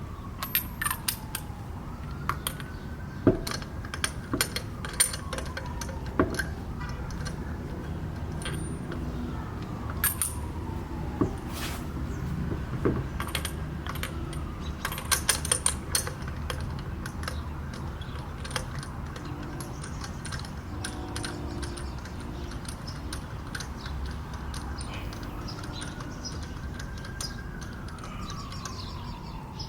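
Metal clinks and ticks of lug nuts and socket tools being handled at a car wheel, scattered irregularly, while a siren wails up and down several times in the background.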